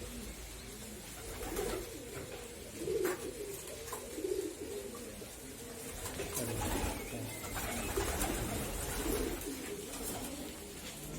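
Pigeons cooing, low repeated coos overlapping throughout, with a few sharp clicks among them.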